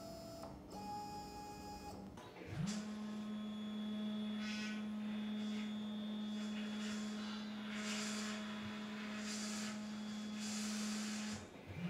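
SmartBench CNC router's stepper motors driving its axes during the homing routine. A steady single-pitched whine comes up quickly about two and a half seconds in, holds for about nine seconds, then stops near the end, followed by a brief second whine.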